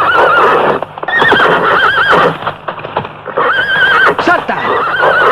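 A galloping horse: hoofbeats with repeated wavering whinnies. A rider shouts "¡Salta!" near the end as the horse is urged over a jump.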